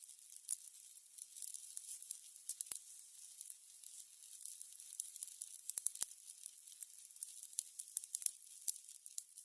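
Burning candles crackling: irregular small crackles and pops over a soft, high hiss, with a few sharper pops about six seconds in.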